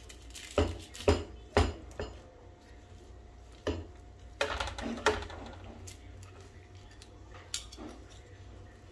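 Steel carving knife and carving fork knocking and scraping on a wooden cutting board while slicing a rolled roast chicken: four sharp knocks in the first two seconds, a cluster of knocks and scrapes around the middle, and one more near the end.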